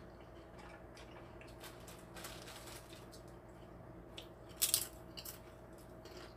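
Quiet eating sounds of cold raw fish soup with rice and vegetables: soft chewing and squishing, with a couple of sharp clicks of utensils about four and a half seconds in, over a low steady hum.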